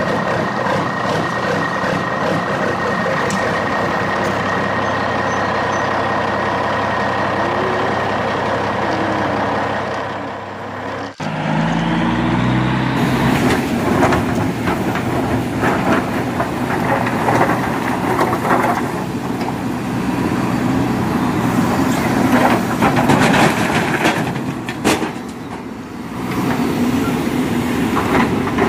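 Heavy truck engine sound effect running at a steady pitch; about eleven seconds in it cuts off and a second engine sound starts and climbs in steps. After the cut it is mixed with dense clattering and rattling, in step with loose gravel being scooped and poured.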